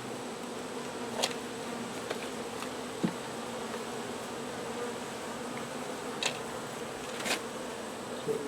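Honey bees buzzing steadily at an open hive, a droning hum, with a few short clicks scattered through it.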